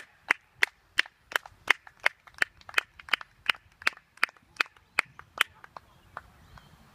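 One person clapping near the microphone at about three claps a second, fading out after about five seconds.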